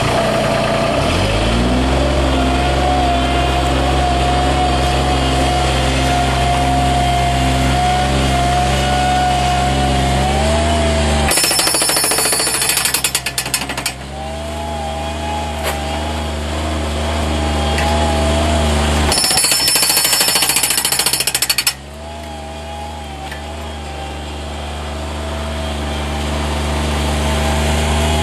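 A mini loader's engine picks up speed and then runs steadily. Twice, for about three seconds each time, a Bobcat HB680 hydraulic breaker hammer fires and pounds concrete in a fast, rattling string of blows. The engine runs on between and after the bursts.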